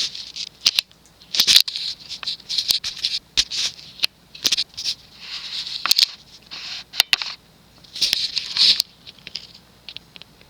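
Irregular rustling and crackling bursts with scattered clicks, coming and going every second or so, over the faint steady low hum of a Hunter Right-At-Home ceiling fan's 172x15 motor running at medium speed.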